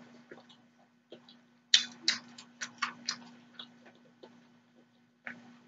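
Close-miked mouth sounds of eating: wet chewing and lip-smacking clicks. A quick run of sharp smacks comes about two seconds in, with scattered softer ones before and after, over a faint steady low hum.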